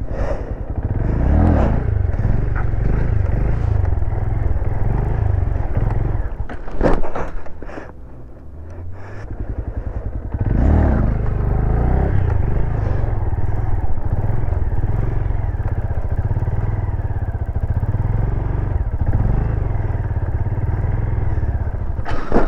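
Small single-cylinder Honda Grom motorcycle engine running and revving during stunt riding, rising in swells and easing off briefly partway through. A sharp clatter about seven seconds in.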